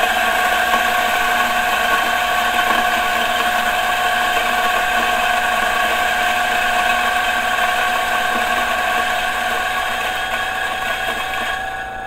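DF64 direct-drive flat-burr coffee grinder grinding beans: a steady motor hum and whine over the burr noise. Near the end the beans run out and the sound drops to the quieter hum of the grinder running empty.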